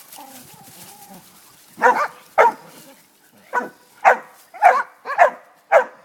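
A dog barking repeatedly: about seven short, sharp barks starting about two seconds in, roughly two a second.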